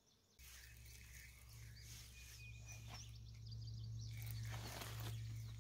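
Faint outdoor ambience: small bird chirps over a steady low hum that starts about half a second in and grows a little louder.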